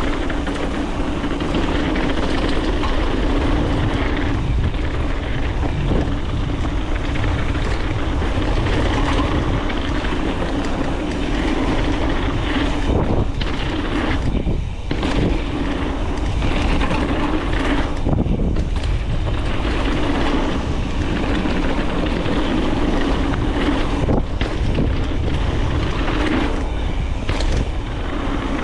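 Wind buffeting the microphone of a camera riding on a mountain bike at speed down a dirt trail, over a steady rumble of tyres and suspension. A few sharp knocks stand out about halfway through and again near the end.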